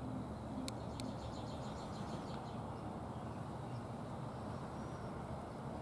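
Outdoor garden ambience: a steady low background hum, with two faint clicks under a second in and a brief faint rapid bird trill just after.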